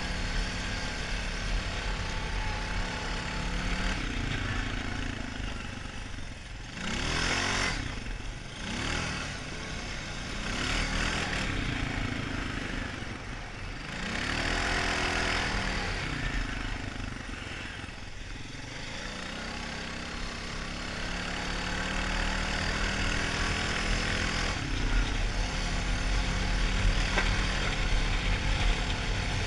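Honda 450 ATV's single-cylinder four-stroke engine running under way, its pitch rising and falling several times mid-way as the throttle is worked, with wind noise and rumble on the helmet-mounted microphone.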